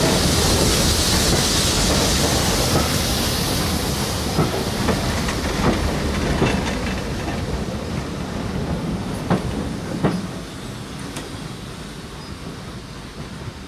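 A train of vintage wooden-bodied passenger carriages rolling past, its wheels making a rushing noise and clacking over rail joints a few times. The sound fades steadily as the last vehicle draws away.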